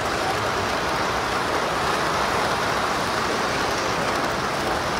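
Model freight train rolling past close by, a steady rumble and clatter of its wheels on the track.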